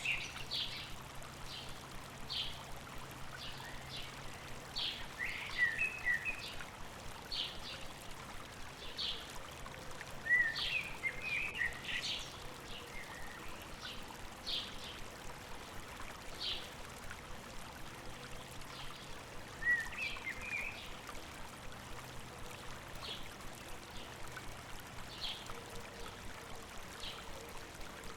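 A river or stream flowing steadily, with birds chirping over it: short high notes about once a second, and louder bursts of quick twittering chirps a few times.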